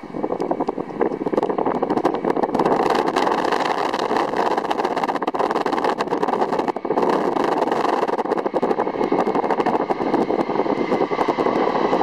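Airbus A300-600ST Beluga's twin General Electric CF6-80C2 turbofans running at takeoff thrust during the takeoff roll, a loud steady jet noise with a ragged crackle through it.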